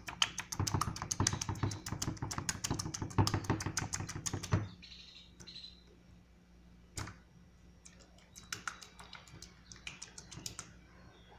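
A hand covered by a plastic bag squishing and kneading a wet food mixture with crushed chips in a bowl: rapid crackling, squelching clicks for the first four and a half seconds, then quieter, with one sharp click about seven seconds in and scattered clicks after.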